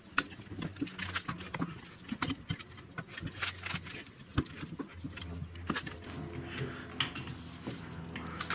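Two large C-clamps being cranked down on a leaf spring pack, their screw handles turning with a stream of irregular small clicks and metallic taps as the leaves are squeezed together to seat an add-a-leaf. A low steady hum comes in about halfway through.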